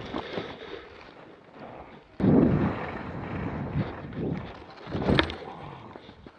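Skis scraping and swishing through off-piste snow at slow speed, with wind rumbling on the action camera's microphone. There is a sudden loud hit about two seconds in, and a sharper scrape a little after five seconds.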